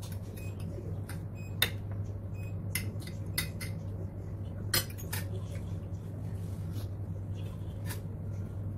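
Metal forks and spoons clinking and scraping against ceramic plates and a bowl, in irregular sharp clicks, the loudest about one and a half seconds in and again near five seconds in.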